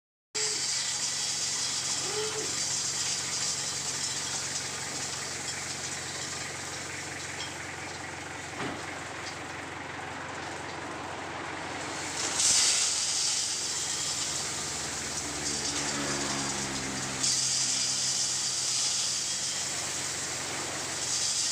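Crushed stone sliding and pouring out of a small dump truck's raised tipper bed onto a pile, a steady gravelly hiss, over the truck's engine running steadily. The pour grows louder about halfway through and again near the end.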